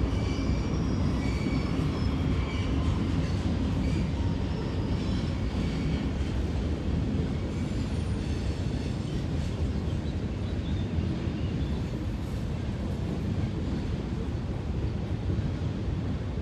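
Freight train rolling past with a steady low rumble of railcars on the rails as its diesel locomotives pull away, and a faint high wheel squeal in the first few seconds.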